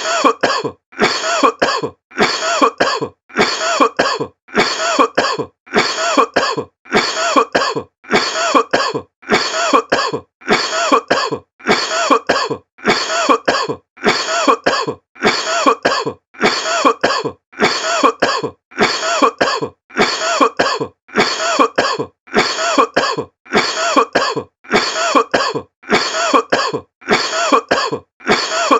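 A person coughing over and over: the same short cough repeated about once a second in a steady, unchanging rhythm.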